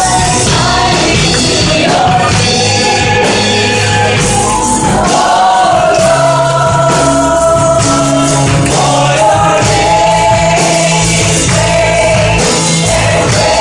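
A worship song plays: a sung melody over an instrumental backing with sustained bass notes and a steady beat.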